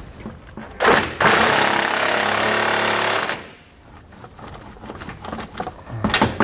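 Cordless impact wrench hammering as it drives a bolt tight with a 22 mm socket. There is a short burst about a second in, then about two seconds of steady hammering, and two brief bursts near the end as the bolt is snugged down.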